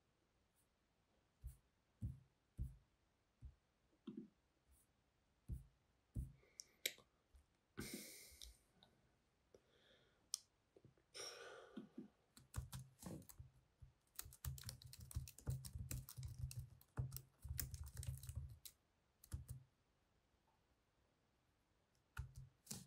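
Typing on a computer keyboard: scattered single key clicks at first, then a quick run of keystrokes lasting several seconds, and a few last clicks near the end.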